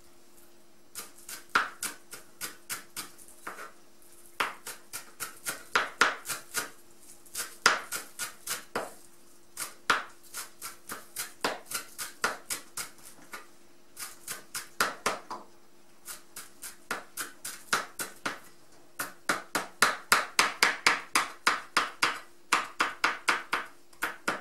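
Chef's knife chopping fresh dill on a plastic cutting board: quick runs of sharp taps, about four a second, broken by short pauses. A faint steady hum runs underneath.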